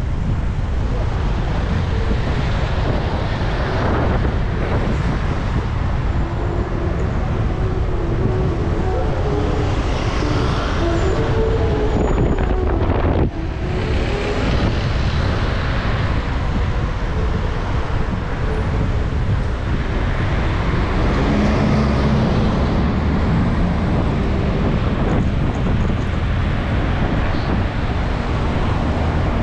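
Street traffic heard from a moving bicycle, with steady wind on the microphone. Motor vehicles pass close by, and an engine drones for several seconds in the first half.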